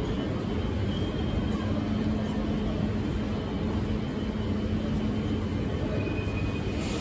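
Busy railway station concourse ambience: a steady low rumble with a constant hum, no distinct single event.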